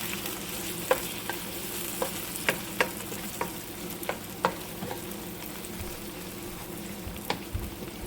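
Onions, carrots, tomato and ground garlic and ginger sizzling steadily in oil in a pot while being stirred, with a spoon clicking against the pot about a dozen times.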